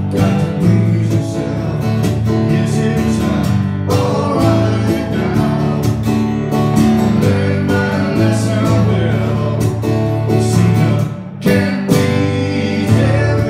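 Live acoustic guitar strummed with electronic keyboard chords, with a man singing over them. The music drops briefly in level near the end.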